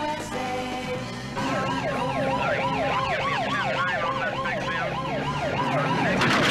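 Police car siren on a fast yelp, its pitch sweeping up and down about three times a second, starting about a second and a half in over film score music. A loud noisy burst comes near the end.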